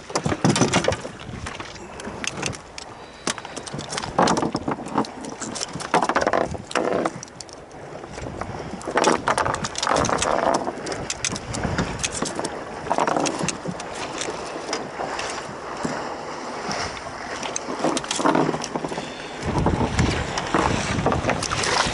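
Water slapping and splashing against a small boat's hull, with scattered knocks and rattles from handling on deck. Near the end a low rumble of wind on the microphone comes in.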